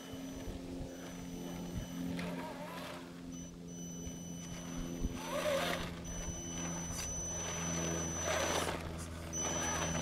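Electric RC scale truck's motor and drivetrain whining steadily as it drives off a trailer onto gravel, with several short bursts of crunching as its tyres work over the stones.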